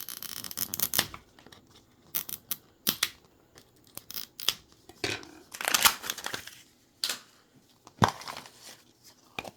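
Plastic wrapping of a Mini Brands capsule and its tiny items being torn and crinkled open by hand, with sharp plastic clicks and snaps scattered between longer stretches of crackling.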